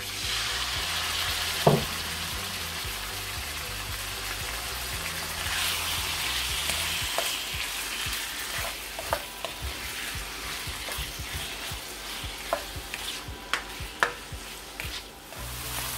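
Raw boneless chicken cubes sizzling as they drop into hot olive oil in a karahi, with one loud thump about two seconds in. From about eight seconds the spatula taps and scrapes against the pan as the pieces are stirred.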